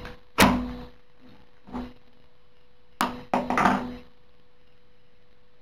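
Flint and steel striker being struck over a wooden board to throw sparks into jute tinder: sharp scraping strikes, two close together at the start and a lighter one near two seconds in, then three quick clacks about three seconds in.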